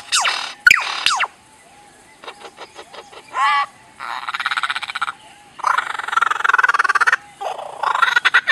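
Lyrebird singing a medley of mimicked sounds. It opens with quick falling whistles, then runs of rapid clicks and rattles, a short rising-and-falling call about three and a half seconds in, and longer buzzing rattles in the second half.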